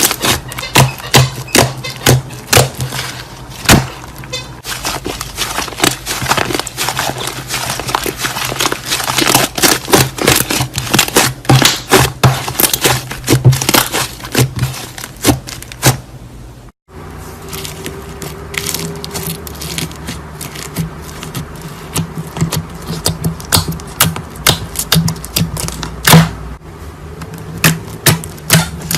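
Slime being squeezed and kneaded by hand, giving quick irregular wet clicks and pops over a steady low hum. The sound breaks off abruptly about 17 seconds in, then the clicking resumes.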